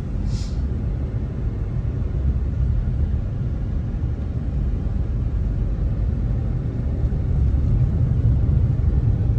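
Steady low rumble of a car driving, engine and road noise heard from inside the moving car, growing a little louder near the end. A brief hiss sounds about half a second in.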